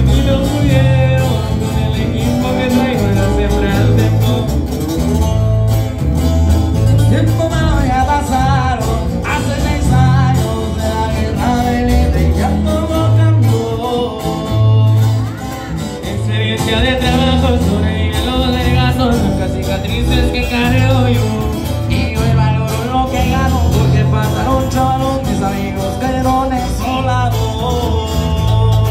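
Live band playing a Spanish-language regional Mexican song: acoustic guitar picking over electric bass, with a man singing into a microphone.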